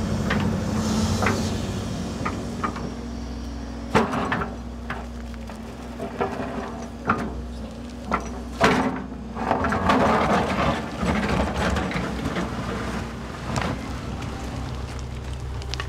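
Case tracked excavator running while its steel bucket digs into rocky ground, with a steady engine hum and irregular sharp clanks and scrapes of rock against the bucket, the loudest about 4, 7 and 8.5 seconds in.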